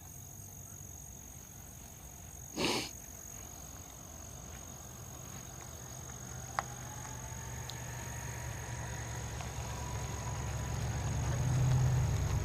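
A motor vehicle's low engine rumble grows steadily louder through the second half, loudest near the end, over a steady high-pitched insect drone. A brief rushing noise comes about three seconds in.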